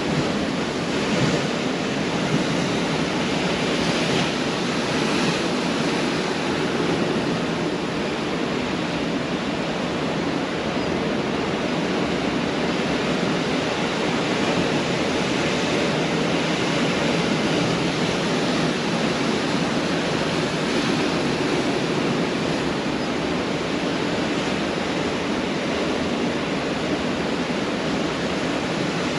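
Pacific Ocean surf breaking on a beach: a continuous roar of waves, swelling and easing slowly.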